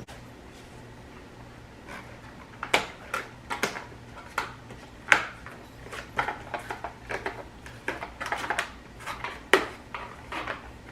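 Pieces of a cake pop stand being fitted together by hand: an irregular run of clicks and knocks starting about two seconds in, with two sharper knocks about five and nine and a half seconds in.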